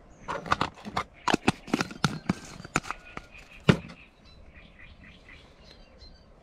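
A quick, irregular run of sharp clicks and knocks from hands handling a plastic bait jar and small plastic rig parts on a table, the loudest knock nearly four seconds in; faint bird chirps follow.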